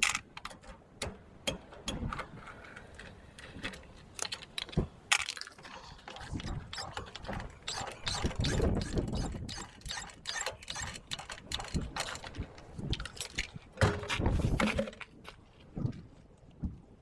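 Hand tools and metal parts being worked and handled, giving irregular sharp clicks and metallic clinks, with a few spells of duller rumbling handling noise.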